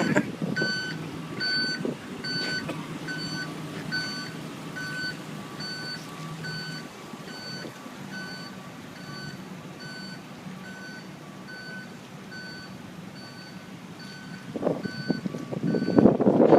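A truck's reversing alarm beeping steadily, a little over one beep a second, over the low hum of its running engine. A louder rushing noise comes in near the end.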